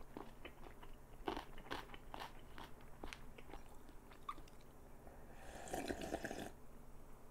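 Close-miked chewing of a mouthful of egg kimbap, with small crunching bites, then a slurp of ramen broth drunk straight from the bowl about five seconds in, lasting about a second.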